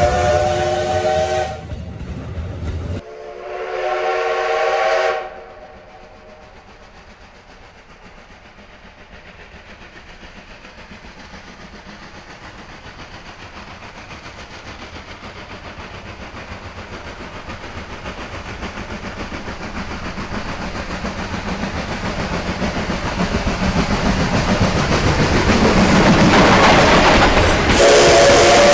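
Steam locomotive's whistle blowing twice in the first five seconds. Then the locomotive's working sound grows steadily louder over about twenty seconds as the train approaches, and another whistle blast starts near the end.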